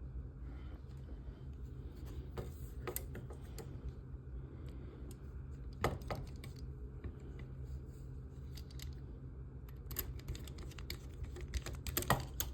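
Scattered small clicks and taps of a screwdriver and tiny screws being worked into a model kit's frame part, busier near the end as a screw is driven home, over a low steady hum.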